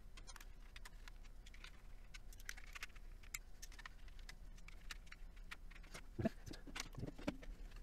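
Light clicks and rattles of a plastic speaker housing being handled during reassembly, with a few duller knocks near the end.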